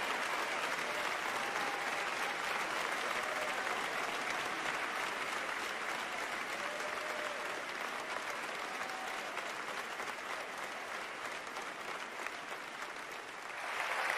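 A large audience applauding steadily, easing off slightly, then swelling again near the end.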